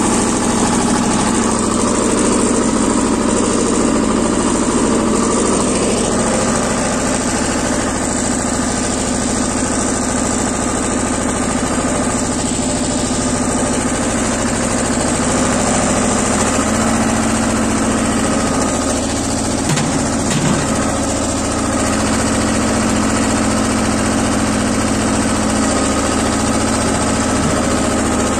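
BJR F 3800 compact tractor's two-cylinder Lombardini 5LD 825-2 diesel running steadily while it pulls a box scraper that levels a dirt track.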